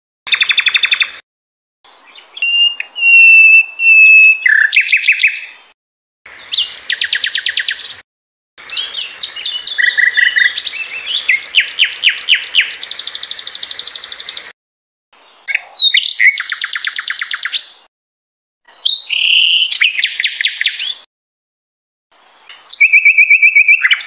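Sikatan londo songbird singing in separate phrases of fast trills, chattering runs and a few held whistles, each a second to several seconds long, broken by short silent gaps. It is a masteran recording, meant for caged songbirds to learn from.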